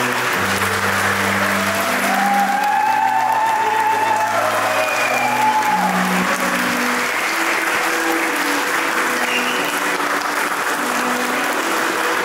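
A crowd of guests applauding steadily over string music with long held low notes.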